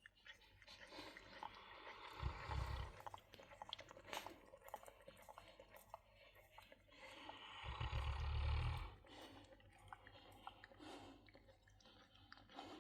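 Snoring: two long, deep, rasping breaths about five seconds apart, with small wet clicks in between.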